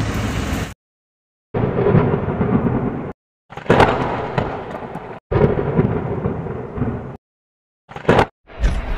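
Thunder sound effects: a run of rumbling thunderclaps, each cutting off abruptly into dead silence, with a sharp crack opening the second clap and a short burst near the end. Under a second of vehicle cabin noise comes first.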